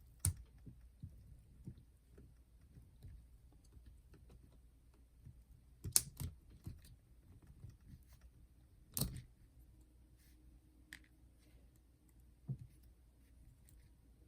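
A few scattered sharp clicks and snaps, with a double click about six seconds in and another about nine seconds in, as plastic zip ties holding cable bundles are removed from a boombox's cassette deck.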